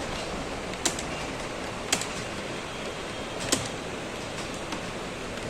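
Computer keyboard keys being typed on, with three sharp key clicks standing out about a second apart over a steady background hiss.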